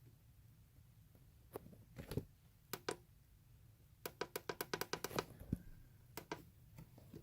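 Plastic buttons on a weather alert radio clicked while stepping through its menu to set the volume: a few separate clicks, then a quick run of about ten presses around four seconds in, then a few more.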